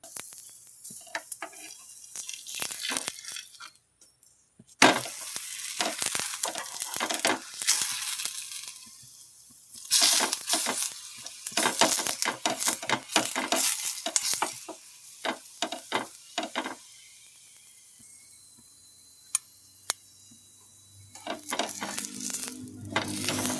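Oil sizzling as a paratha fries on a hot griddle, coming in bursts broken by short pauses, with many sharp clicks.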